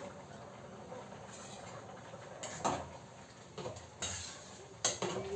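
A few clinks and knocks of a kitchen utensil against a metal pot, spaced irregularly over a faint steady background.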